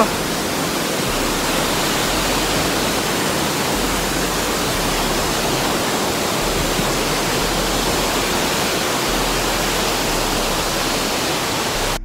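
A tall waterfall plunging down a cliff face, a steady, even rushing of falling water.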